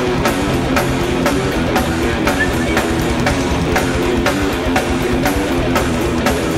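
Thrash metal band playing live: distorted electric guitars and bass over drums, with evenly spaced hard drum hits.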